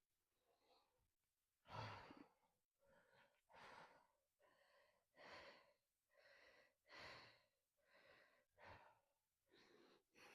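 Faint, quick breathing close to the microphone, a soft breath roughly every second.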